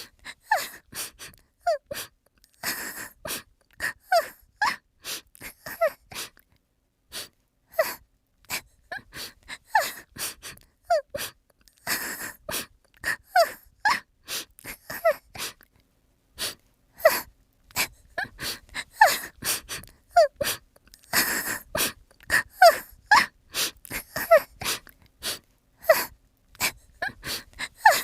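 Rapid, irregular string of short squeaky vocal sounds, gasps and whimpers, many with quick rising or falling pitch slides.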